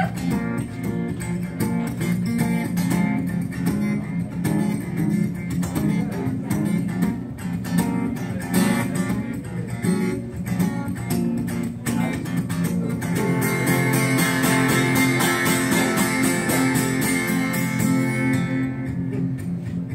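Acoustic guitar strummed in a steady rhythm as a solo instrumental passage. The chords ring fuller and brighter for the stretch from about two-thirds of the way in until shortly before the end.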